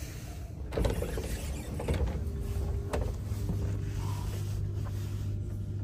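Automatic sliding doors between the carriages of a passenger train opening and shutting: a loud rush about a second in, then a motor whine that ends in a click about three seconds in, over the carriage's steady low hum.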